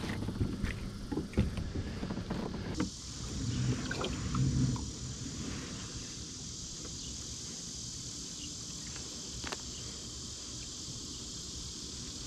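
Light knocks and rustles of fish and gear being handled aboard a fishing kayak, over a low wind rumble. About three seconds in, a steady high hiss sets in and holds.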